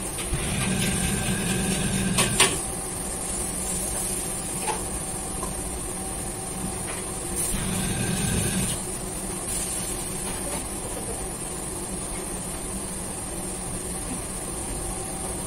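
Steady roar of a commercial kitchen's exhaust hood and gas wok burner, with a metal ladle clanking against a wok, loudest a little over two seconds in. Two louder rushing stretches of a second or two each come near the start and about eight seconds in.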